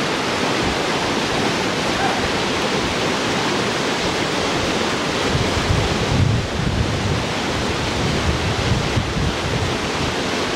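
Whitewater rapids rushing steadily, with a low rumble of wind on the microphone that swells about six seconds in.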